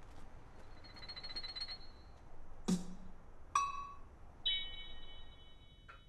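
A soft shimmering rattle, then a sharp knock, then two struck bell-like chime tones, the second ringing on for about a second and a half.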